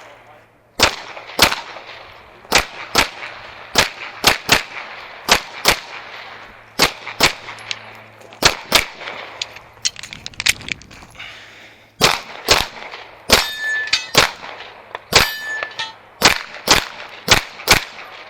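Gas-blowback airsoft pistol fired in rapid strings, mostly quick pairs of shots, with a short break near the middle. A few hits in the second half leave a brief metallic ring from steel targets.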